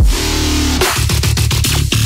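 Electronic background music with a heavy bass line.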